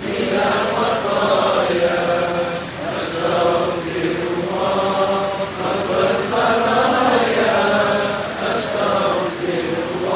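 A man's voice chanting a slow, melodic Malay devotional prayer through a microphone and PA, drawing out long wavering notes in phrases with short breaths between.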